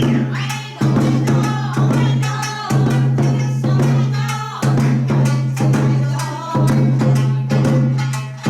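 Japanese folk dance music with a steady drum beat and a melody that bends widely in pitch.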